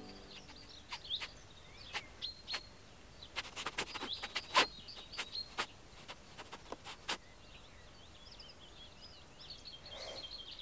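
Small birds chirping and twittering outdoors, with a run of sharp, irregular clicks or taps between about one and seven seconds in.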